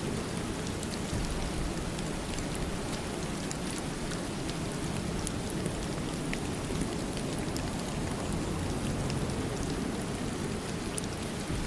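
Steady rain falling, a dense even hiss with a low rumble and scattered faint drop ticks.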